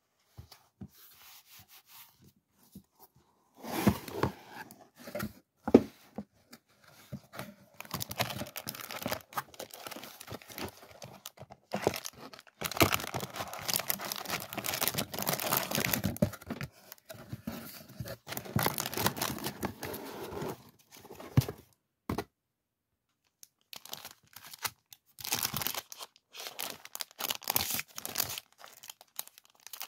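Crinkling and rustling of clear plastic packaging as a box of washi tape and sticker packs is unpacked by hand, in irregular bursts with a few sharp crackles. It is faint at first and pauses briefly about three quarters of the way through.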